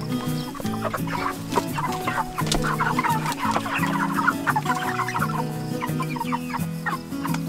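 A flock of meat chickens clucking and cheeping in many short overlapping calls, over steady background music.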